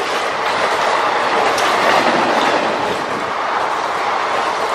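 Express train passenger coaches rushing past at speed close by: a loud, steady rush of wheels running on the rails.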